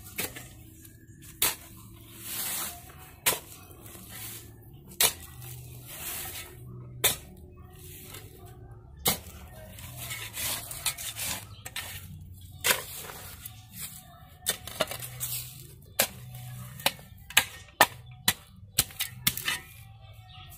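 Flat steel shovel working dry, loose dirt: irregular sharp scrapes and chops of the blade into the soil, with a few longer scuffs of earth being pushed over, coming faster near the end.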